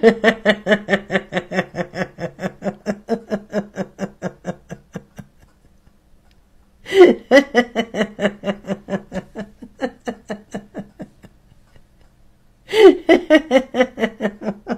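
A woman laughing in three long bouts of rhythmic 'ha-ha-ha', each starting loud and tapering off, with short pauses between. It is a deliberate laughter yoga exercise.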